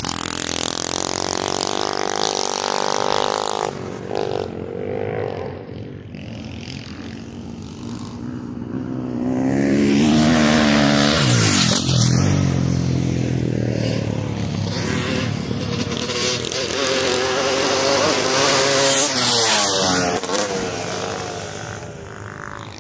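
Dirt bike engines revving up and down as bikes ride past on a dirt track. The loudest pass comes about ten to twelve seconds in, its pitch falling as it goes by, and another bike passes loudly near the end.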